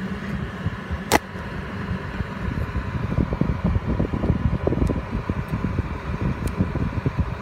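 A car's air-conditioning fan runs steadily inside the cabin over a low, uneven rumble. One sharp click comes about a second in.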